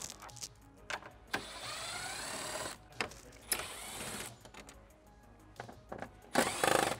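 Cordless drill-driver backing out the radiator support cover's Torx screws in short runs, its motor whining up in pitch as it spins. Sharp clicks come between the runs, and a louder run comes near the end.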